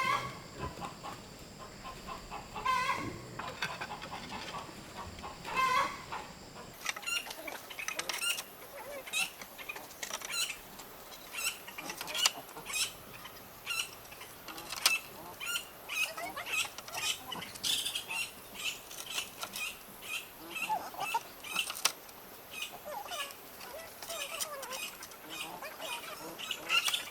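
Chickens clucking a few times over a steady high insect drone, then from about seven seconds in a long run of quick sharp taps or knocks, roughly two a second.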